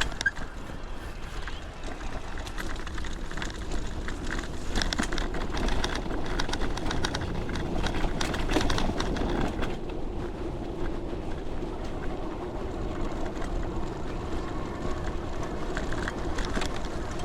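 Wind rushing over the microphone and tyres hissing on wet pavement during a bicycle ride, with a run of small rattles and clicks over the middle seconds and a steady hum coming in about halfway through.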